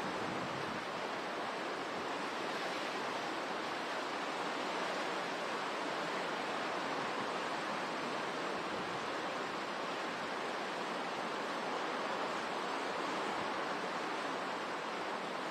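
Hurricane wind and driving rain: a steady, unbroken hiss with no letup.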